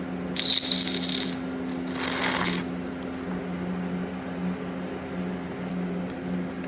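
Stick welding arc crackling and sizzling in two short spells in the first few seconds, as the rod is struck inside a guide piece to weld onto a broken-off motor mount bolt in the engine block, over a steady hum. The weld does not take hold on the bolt.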